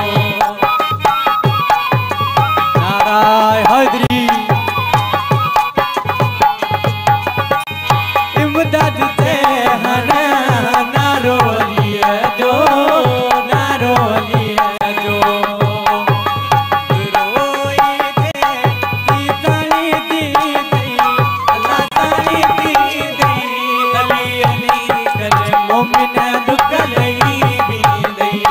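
Live Sindhi Sufi folk music: a hand drum beats a steady, fast rhythm under a melody carried on harmonium.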